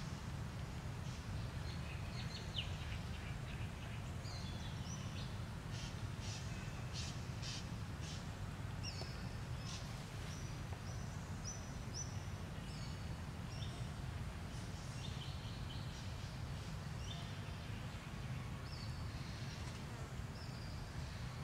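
Birds chirping and calling in short, high notes off and on, over a steady low rumble of outdoor noise.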